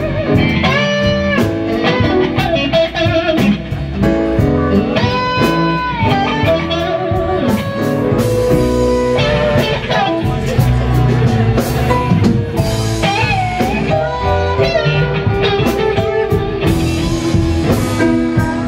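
Electric blues guitar solo on a Stratocaster-style guitar, with bent notes held and shaken with vibrato, over a full band.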